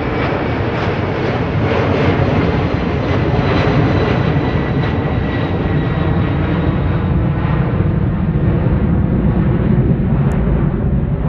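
A large military jet's turbofan engines, loud and steady, with a faint whine drifting slowly down in pitch. The higher hiss fades over the second half while the low rumble holds.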